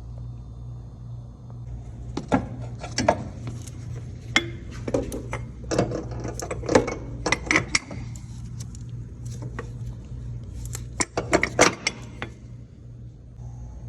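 Metal tools and parts clinking and clanking in irregular bursts, some in quick runs of clicks, over a steady low hum.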